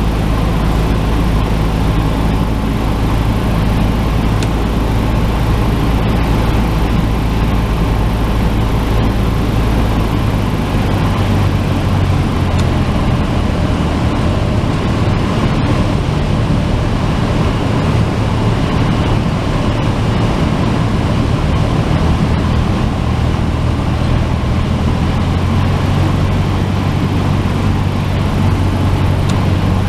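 Cessna 172's piston engine and propeller droning steadily as heard in the cockpit, with a broad rush of noise over it; the engine note shifts about ten seconds in.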